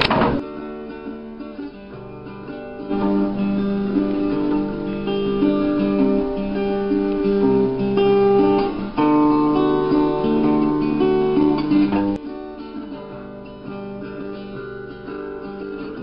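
Acoustic guitar played by hand: a run of changing notes and chords, fuller and louder in the middle and softer after about twelve seconds. A short click comes right at the start.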